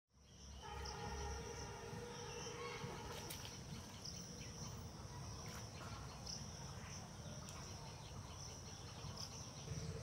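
Steady high-pitched chorus of insects, with a rumble of low noise beneath it. During the first few seconds a few steady tones sound as well.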